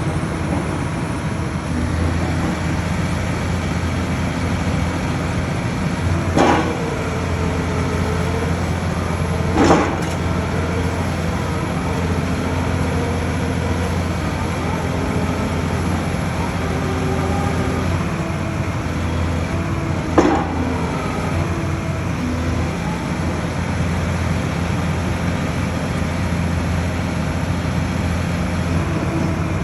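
SR-830 rotary drilling rig's Cummins diesel engine running with a steady low drone. Three short sharp clanks come through it, about six, ten and twenty seconds in.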